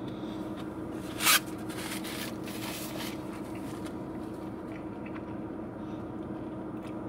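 Faint eating and food-handling sounds as a cheeseburger is chewed and handled in its wrapping, with one short, sharp rustle about a second in, over a steady low hum.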